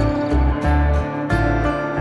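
Background music with a steady, pulsing bass beat and sustained melodic notes.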